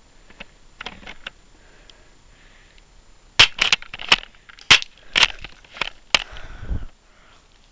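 A quick run of about eight sharp cracks and knocks in under three seconds, then a short low rumbling scuffle. A few faint clicks come before them.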